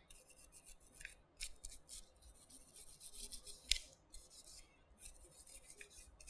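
A stiff-bristled cleaning brush scrubbing the grooves of an AR-15 side-charging handle: faint, repeated scratchy strokes, with a sharp click a little before the four-second mark.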